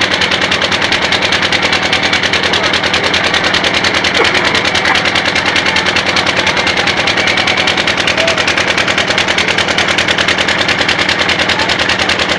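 A motorboat's engine running steadily close by, with a rapid, even chugging beat that does not change.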